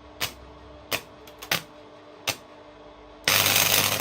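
Welding arc on the bumper's metal: five short zaps struck in the first couple of seconds, then an arc held for over a second, starting a little over three seconds in, as a weld is laid.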